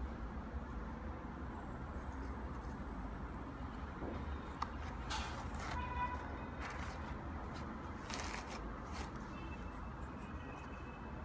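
Steady low background rumble, with brief rustling of hands handling a knit sneaker about five seconds in and again around eight to nine seconds in.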